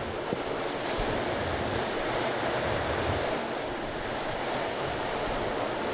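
Strong wind and heavy rain making a steady rushing noise, with gusts buffeting the microphone.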